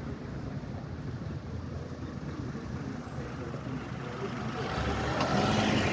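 Motor vehicle noise, a rumbling haze without a clear engine note, growing louder over the last second or so.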